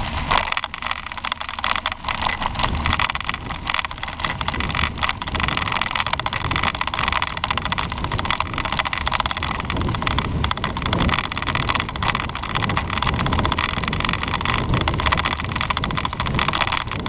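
Bicycle tyres rolling over a gravel and dirt road, a steady dense crackle, with wind rumbling on the bike-mounted camera's microphone.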